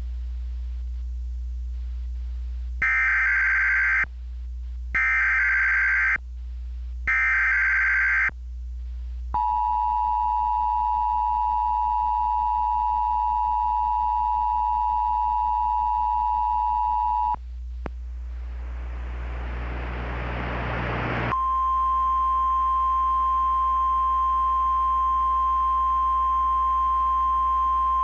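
Emergency Alert System mock alert tones: three short bursts of SAME header data, then the two-tone EAS attention signal held for about eight seconds. A rising hiss follows, and then a steady single-pitch NOAA Weather Radio alert tone that runs on, all over a low hum.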